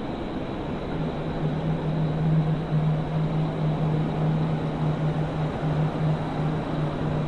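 Ring doorbell camera's own microphone audio: a steady outdoor hiss with a low, steady hum coming in about a second in and running on with short breaks.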